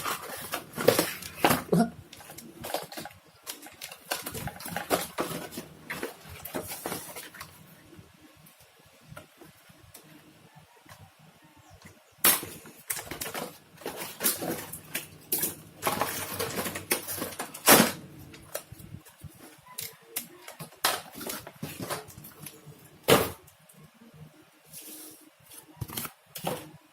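Irregular clicks, knocks and rustling as an RC toy car and its packaging are handled and pulled apart during unboxing, with a quieter stretch about a third of the way in.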